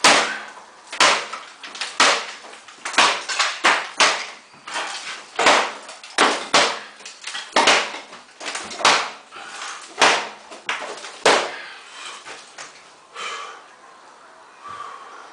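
Repeated heavy blows battering a house wall during demolition, about one a second with some in quick pairs, with crashing of breaking wall material. The blows stop about eleven seconds in, leaving a few fainter knocks.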